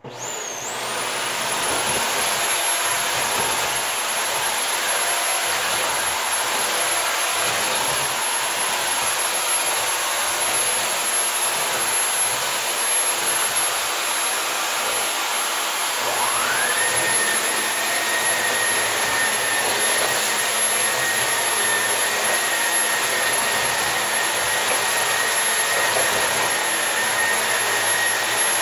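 Hoover Air Lite vacuum cleaner switched on and running steadily, its motor rising to a high, steady whine as it spins up. About sixteen seconds in, a second, lower whine rises and then holds.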